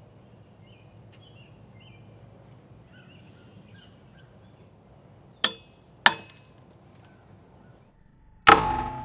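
A 3D-printed carbon-fibre PETG joint cracking under twisting torque: two sharp cracks about half a second apart, then a louder snap near the end as the joint breaks, followed by a ringing tone that fades slowly.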